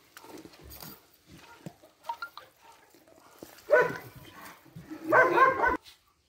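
A dog barking: a short bark a little under four seconds in, then a longer, louder bark or quick run of barks about a second later.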